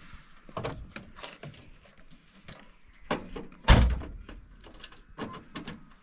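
A pickup truck's cab door slams shut with a single heavy thump about two-thirds of the way in. Around it come lighter knocks and scuffs of someone climbing onto the truck's rear bumper and tailgate.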